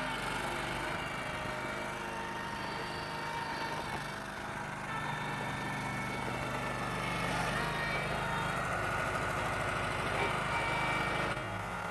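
Terramite T5C compact tractor-backhoe's engine running steadily.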